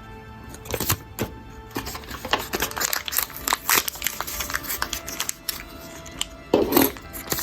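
Background music under the crinkling of small plastic packets and light clicks of handled pieces, with one louder rustle near the end.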